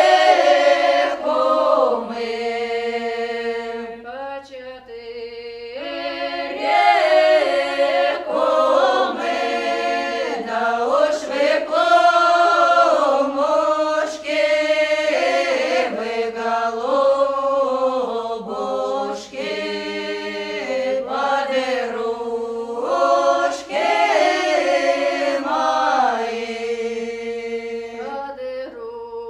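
Choir singing a song in Russian, the voices holding long notes together.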